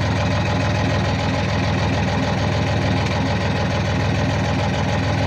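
Sailboat's engine idling steadily, with an even low hum.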